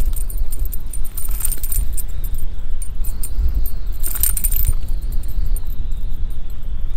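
Wind buffeting the microphone in a low rumble, over light metallic jingling and clicking from the underspin lure's blade and hook as a freshly landed largemouth bass shakes its head. The jingling is busiest at the start and comes again about four seconds in.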